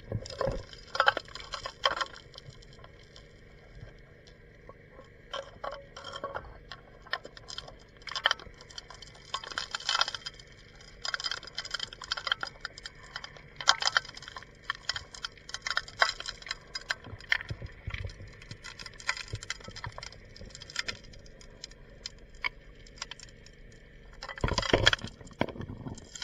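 Underwater, riverbed stones and gravel clacking and knocking irregularly as a gold dredge's suction nozzle is worked into the bottom by hand, over a faint steady hum. A louder rushing noise lasts about a second near the end.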